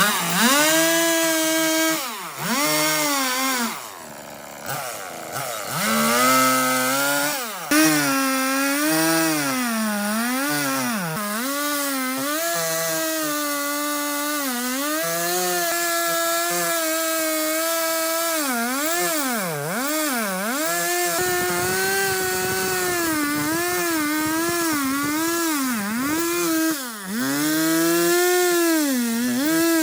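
Chainsaw cutting into a tree stump, its engine pitch repeatedly dipping as the chain bogs in the wood and rising again as it frees. It drops to a quieter, lower pitch for a moment a few seconds in.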